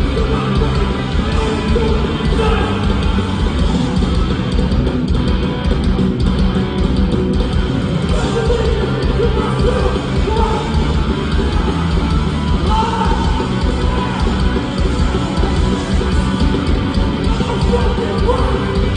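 Hardcore punk band playing live and loud in a large hall, a dense wall of distorted rock music that runs on without a break.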